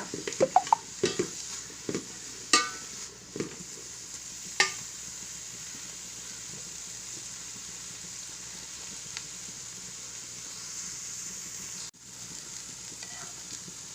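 Chopped vegetables stir-frying in a pan: a steady sizzle, with a spatula knocking and scraping against the pan several times in the first few seconds. The sizzle breaks off briefly about twelve seconds in, then resumes.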